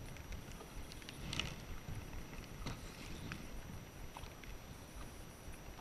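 Small waves lapping and splashing irregularly against the hull of an inflatable boat, with a low rumble of wind on the microphone. The strongest splash comes about a second and a half in.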